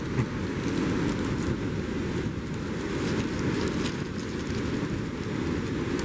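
Steady rush of wind on the microphone and breaking sea surf, with light crackling of a chocolate's plastic wrapper being unwrapped.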